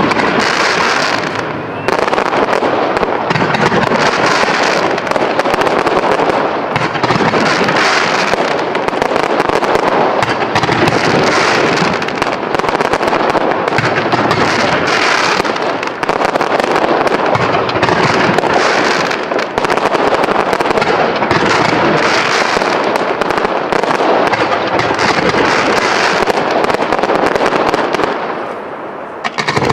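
Professional fireworks display: aerial shells bursting and crackling densely, many reports running together without a break, with a brief drop in loudness near the end.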